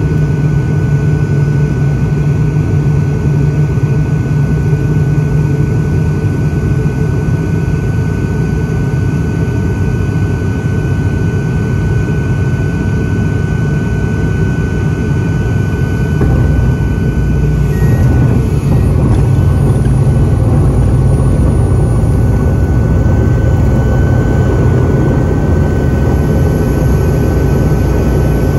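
Cabin noise of an ATR 42-600 turboprop landing: a steady drone from its Pratt & Whitney PW127 engines and propellers with a high steady tone. About 16 to 18 seconds in, as the aircraft touches down and rolls along the runway, the drone grows louder and a deeper rumble joins it.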